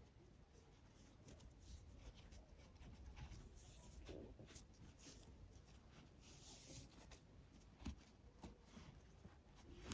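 Near silence, with faint, intermittent rustling of nylon paracord being handled and pulled tight around a metal buckle, and a small tick near the end.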